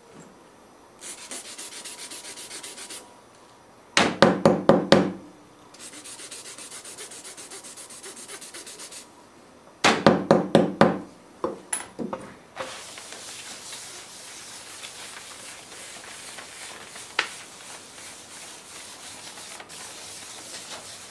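An old rasp scraping a stick of blacksmith chalk to make chalk dust, in two short runs of strokes, each followed by a quick series of about five or six knocks. Then the chalk dust is rubbed into the back of a paper drawing with a steady rubbing that runs on to the end, with one sharp click partway through.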